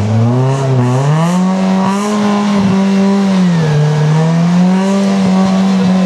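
Suzuki rally car's engine held at high revs, the pitch rising and falling through several long swells, as the car is driven out of a roadside ditch.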